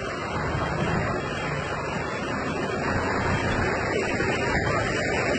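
Rainwater flooding a street, flowing across the road in a steady wash of noise.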